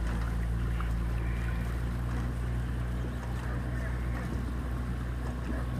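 Outboard motor of a coaching launch running at a steady cruising speed, a low even hum, with wind and water rushing past.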